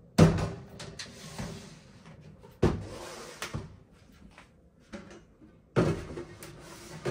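Clear plastic storage bins, loaded with tumblers and jars, being set down and pushed along a shelf: three sharp knocks, each followed by a short scraping slide, with lighter taps and clinks between.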